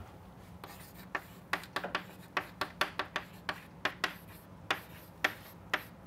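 Chalk writing on a blackboard: an irregular run of sharp taps and short scratches as words are written.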